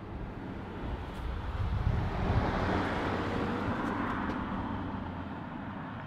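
2007 Suzuki V-Strom DL1000's 996 cc V-twin starting from cold. It catches about two seconds in and settles into a steady idle, heard close to the exhaust silencer.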